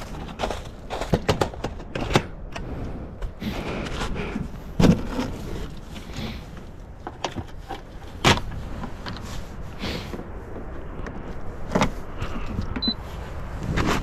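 Clunks, knocks and rustles as an electric pressure cooker and its cord are handled and set down on a wooden picnic table, with a few heavier thumps, over a steady low rumble of wind on the microphone. Near the end a short high beep sounds as a button on the cooker's control panel is pressed.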